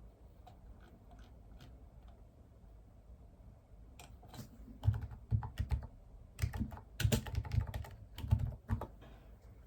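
Typing on a computer keyboard: a few faint key taps, then from about halfway in, quick runs of keystrokes broken by short pauses.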